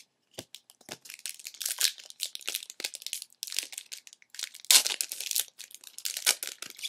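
Plastic wrapper of a baseball card pack being torn open and crinkled: a dense crackling with many small snaps, loudest about five seconds in.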